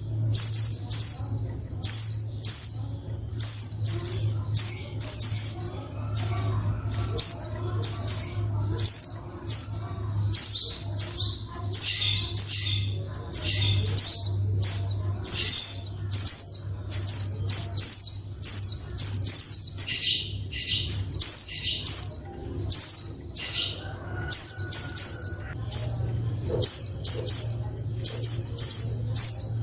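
Female white-eye (pleci) calling: short, high, downward-slurred notes in quick clusters of two to four, repeating about once a second, over a steady low hum. The calls are used as a lure to provoke male white-eyes into singing.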